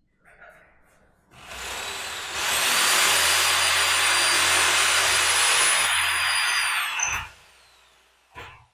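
A power tool motor starting up and running steadily with a high whine for about five seconds, then cutting off about seven seconds in, its pitch dropping as it spins down. A faint knock follows near the end.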